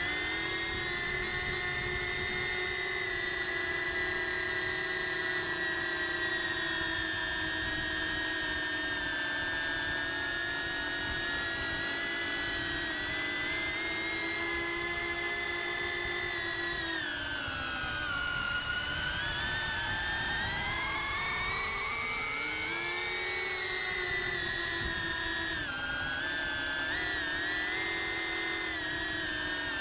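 Cinewhoop FPV drone's brushless motors and ducted propellers whining steadily at several pitches at once. Past the middle the whine sags lower and then climbs back as the throttle is eased off and opened up again, with a smaller dip a little later.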